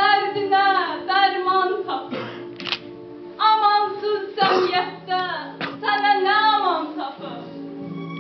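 A girl singing a lament into a microphone in short phrases that fall in pitch at their ends, over sustained background music. The voice drops out near the end, leaving the music.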